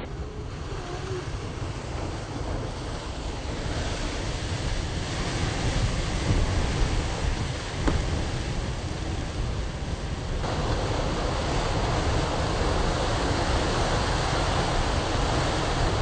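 Ocean surf breaking and surging against rock ledges: a continuous wash of churning water with a deep rumble, and wind buffeting the microphone. The hiss of the water grows louder about ten seconds in.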